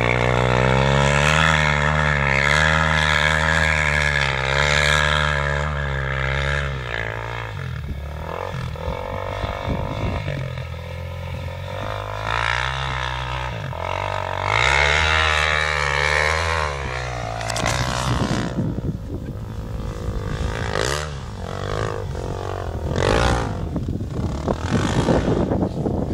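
Off-road motorbike engine revving up and down as the bike climbs and rides across sand slopes, strongest in the first seven seconds and again around the middle, rougher and noisier in the last third.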